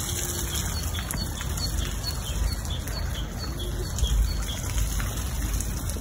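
Small birds chirping in a quick repeated series, about two chirps a second, over the steady rush and trickle of water from a park fountain and pond, with a low rumble underneath.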